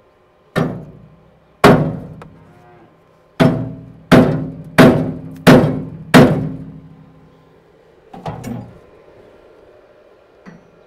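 Hammer striking steel: seven hard, ringing blows, the last five coming about two-thirds of a second apart, then a lighter double knock near the end.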